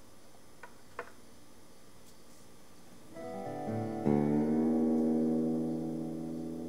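Acoustic guitar: two light clicks about a second in, then notes swell in around three seconds, and a chord struck about four seconds in rings on, slowly fading.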